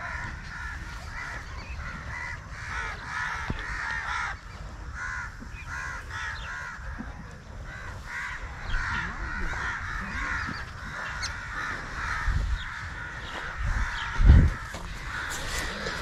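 Crows cawing repeatedly, many short harsh calls following one another, over a low rumble on the microphone. A brief loud thump about fourteen seconds in.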